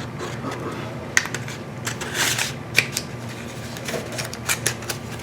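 Sharp plastic clicks and a brief rustle from handling a dual-ended eyeliner pen, several separate clicks spread over a few seconds.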